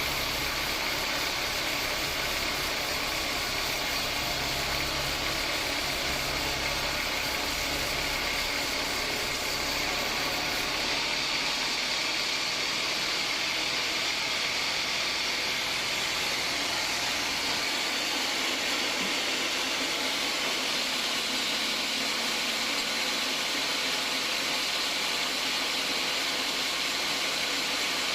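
Band sawmill running as its blade cuts a hard acacia log: a steady hiss with a low motor hum that drops away about eleven seconds in.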